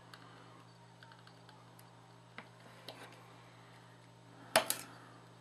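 Faint scattered clicks and taps of hands working a hot glue gun against a floodlight housing, then a sharp double clack about four and a half seconds in as the glue gun is set down on the table.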